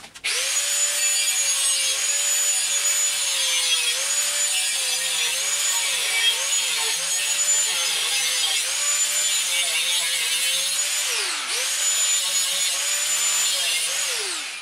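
Angle grinder cutting steel. Its high whine dips in pitch again and again as the disc bites and binds up in the cut. About eleven and a half seconds in it winds down and is brought back up to speed, then it winds down again near the end.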